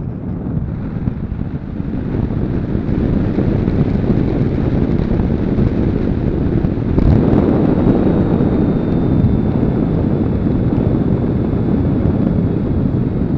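Airflow rushing over a glider and its onboard camera microphone in fast, low flight, swelling over the first few seconds and then holding steady. A faint high whine joins about halfway through.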